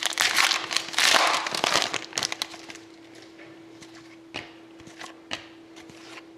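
Trading card pack wrapper crinkling and tearing open for about two seconds, then quieter scattered clicks and taps of cards being handled.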